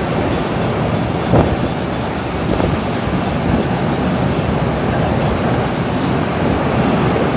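Loud, steady rushing wind noise, with a brief thump about a second and a half in.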